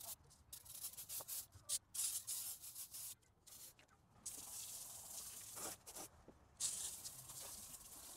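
Aerosol brake parts cleaner sprayed over the engine in a series of short hissing bursts. This is followed in the second half by longer, steady hissing sprays, with a garden-hose nozzle spraying water over the engine by the end.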